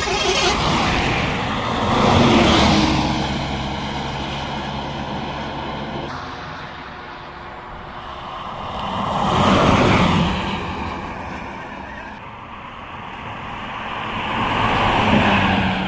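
Buses passing at speed on a highway, one after another: three pass-bys, each swelling up and fading away, with engine drone and tyre noise. They peak about two, ten and fifteen seconds in.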